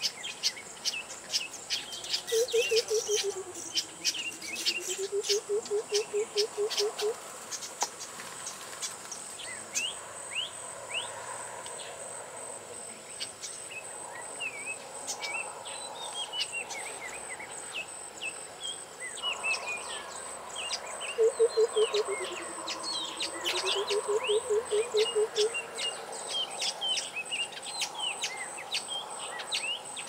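White-browed coucal giving its bubbling 'water-bottle' call twice, a rapid run of low hoots that falls in pitch and then rises again. Smaller birds chirp throughout over a steady high insect whine.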